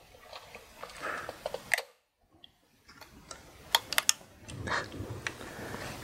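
Alligator-clip test leads being unclipped and reclipped onto the wire leads of LEDs: scattered small sharp clicks with faint handling rustle, and a short dead-quiet gap a little after two seconds in.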